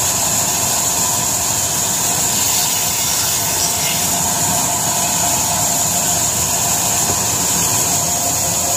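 Belt-driven vertical band saw running steadily as a log is fed through its blade, a constant high hiss over a steady hum.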